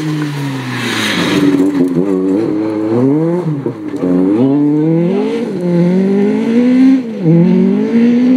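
Rally car engine revving hard as it passes on a loose gravel stage. Its pitch climbs and drops back several times as the driver shifts gear and lifts off. A rush of gravel noise comes about a second in.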